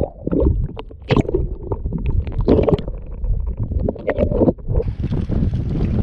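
Muffled underwater rumbling and knocking picked up by a submerged camera on a prawn trap. Nearly five seconds in, it switches to steady wind noise on the microphone above water.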